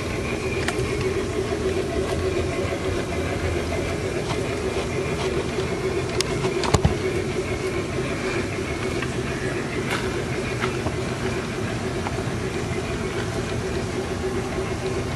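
Large-scale Bachmann three-truck Shay model train running along garden track: a steady whir of the locomotive's motor and gearing, with a few sharp clicks, the loudest about seven seconds in.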